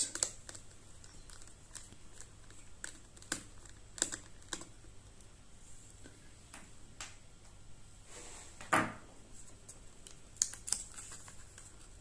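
Small scattered clicks and taps of a screwdriver and loosened Phillips screws against a laptop's chassis and battery as the battery screws are taken out, with one louder handling noise about nine seconds in.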